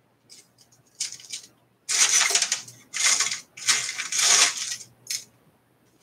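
Loose metal PC screws rattling and clinking as a hand rummages through a mixed stash of them, in several rattling stretches, with one sharp click near the end.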